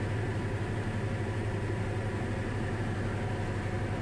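Diamond DA40 light aircraft's piston engine and propeller droning steadily in flight, heard inside the cabin: a strong low hum with a steady hiss of airflow over it.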